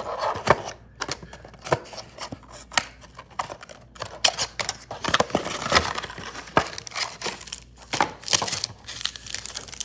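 Hands opening a cardboard trading-card booster box and handling the foil booster packs inside: an irregular run of cardboard scrapes, taps and foil crinkles.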